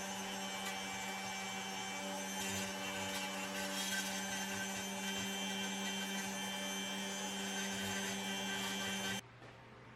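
A small electric motor-driven workshop tool running steadily with a hum and whine, cutting off abruptly near the end.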